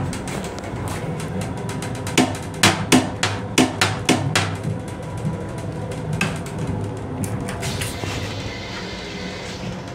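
Steady low rumble of an M7 commuter railcar running, heard from inside its restroom. About two seconds in comes a quick run of about six sharp knocks as the plastic toilet lid is handled and lowered.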